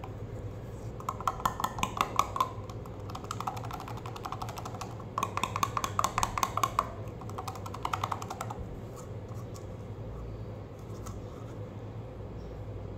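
A small metal tin being worked open by hand, its lid giving rapid crackling clicks in four bursts of one to two seconds each.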